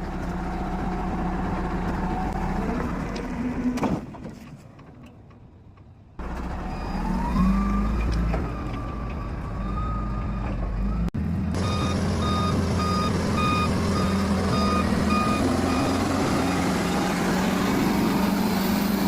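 Wheel loader's diesel engine running, with a rising, wavering whine about seven seconds in as it revs. The sound drops away briefly before that. A reversing alarm beeps steadily for about four seconds near the middle.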